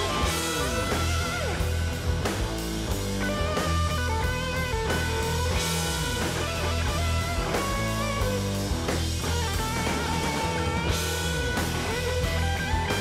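Background rock music with a guitar melody over bass and drums.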